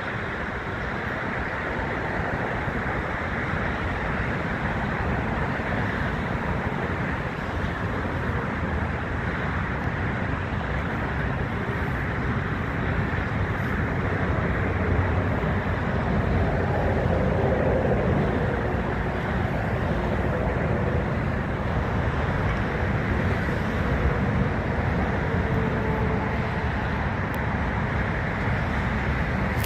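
Steady, distant rumble of jet airliners' engines across an airport, swelling slightly midway, with some wind on the microphone.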